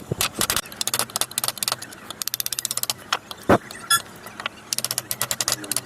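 A woodcarving chisel struck with a mallet, in quick runs of sharp taps with one louder knock about halfway through.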